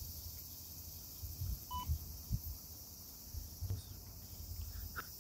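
A chorus of cicadas droning steadily, with a short electronic beep about two seconds in and a few low thumps in the middle.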